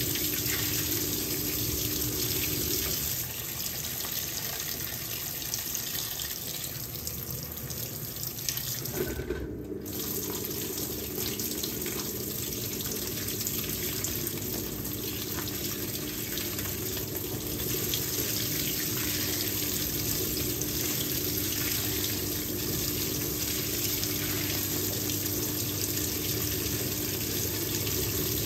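Fisher & Paykel WL8060P1 washing machine filling, with water running steadily into the drum. A low steady hum stops about three seconds in and comes back about nine seconds in.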